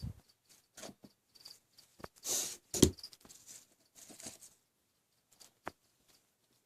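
Packaging being handled during an unboxing: scattered small clicks and short rustles, with a longer rustle about two seconds in and a sharp click just after it.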